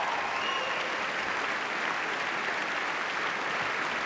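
A large seated audience applauding steadily: many hands clapping at once in a big hall.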